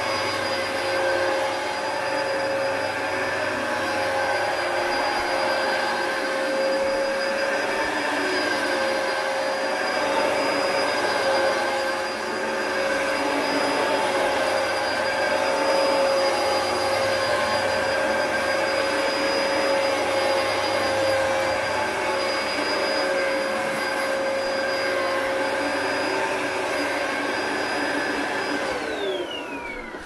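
Dyson DC01 upright vacuum cleaner running steadily with a high motor whine. Near the end it is switched off and the whine falls in pitch as the motor runs down.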